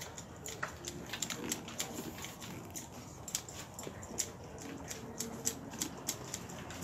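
Irregular sharp snips of hand shears clipping the leaves of a clipped sanh (Chinese banyan-type) topiary tree, several in quick succession at times.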